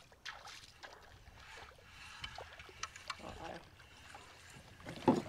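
Water trickling and splashing at the side of a small boat, with scattered small clicks and knocks, and a short loud burst about five seconds in.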